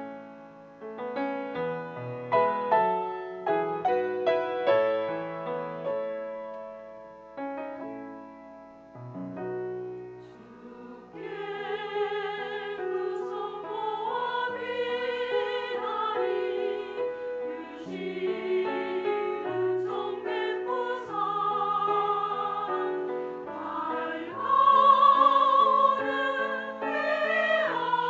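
Piano introduction of single struck notes and chords, then about eleven seconds in a women's church choir comes in, singing a hymn in held notes with vibrato over the piano accompaniment.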